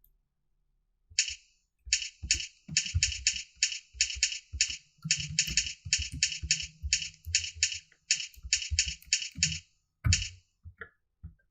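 Typing on a computer keyboard: a steady run of keystrokes, about three a second, each a sharp clack with a dull knock. They stop briefly near the end, then a few single clicks follow.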